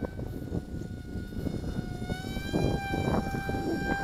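Whine of the 1106 brushless motor and propeller of a small foam RC plane in flight, a steady high tone that steps up slightly in pitch about halfway through. Wind buffets the microphone underneath.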